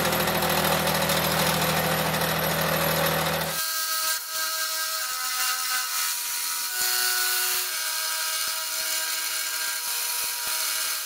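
Round-column mill-drill taking a hard cut across a hardened steel anvil face with a three-insert indexable face mill. A deep steady motor hum under the cutting noise drops away suddenly about three and a half seconds in, and the cutting goes on as a hiss with several high tones that shift in pitch.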